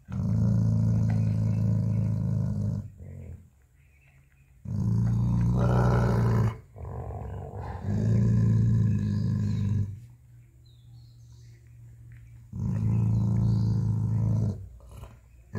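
Large black-and-tan dog growling in four long, low growls of about two seconds each, with short pauses between them: a warning growl from a dog guarding its bone.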